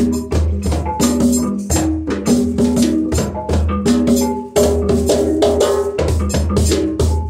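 Live percussion jam: djembe hand drums and other percussion play a fast, dense beat over a deep bass line, while a keyboard plays short repeated melodic notes.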